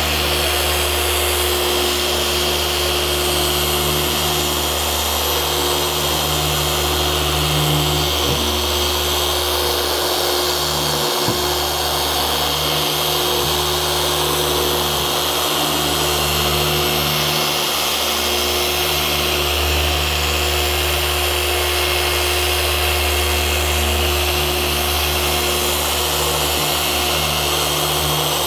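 Rupes electric polisher running steadily with a yellow foam finishing pad on automotive clear coat, its motor note dipping briefly a couple of times as the pad is worked across the panel.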